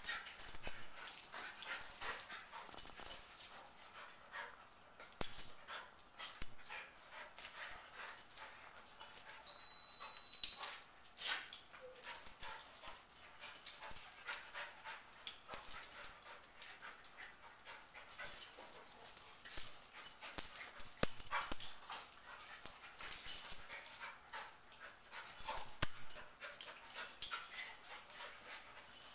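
Two dogs, a shiba inu and a larger dog, wrestling in play: short dog vocalizations mixed with quick clicks and scuffles of claws on a tile floor, going on throughout. A brief high steady tone sounds once, about ten seconds in.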